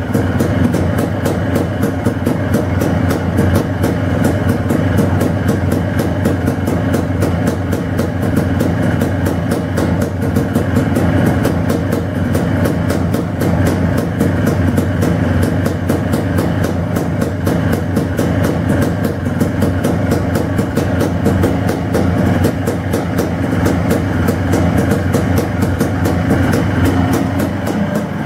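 Air-cooled 200cc single-cylinder two-stroke engine of a 2005 Yamaha Blaster running steadily through its FMF Powercore 2 exhaust, freshly rebuilt, with a rapid even firing beat.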